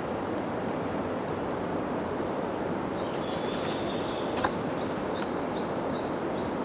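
Steady outdoor background noise, and from about halfway through, a high rising call repeated about nine times, a little under three a second, from a small wild animal.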